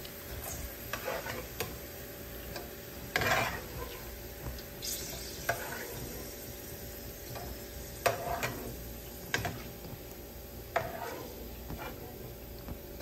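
A metal slotted spatula scraping and knocking against a nonstick wok every second or so as fried jengkol slices are scooped out of the oil, over a faint steady sizzle of the frying oil. The loudest scrape comes about three seconds in.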